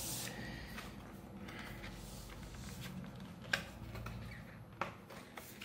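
Faint scraping of a plastic card being worked along the seam of a laptop's bottom cover, with a few sharp clicks, the clearest about three and a half and five seconds in, as the cover's retaining clips let go.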